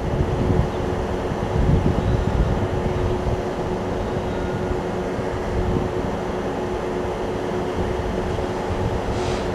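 WAP-4 electric locomotive approaching slowly: a steady electric hum with one constant tone, over the low rumble of its wheels on the track, a little louder a couple of seconds in.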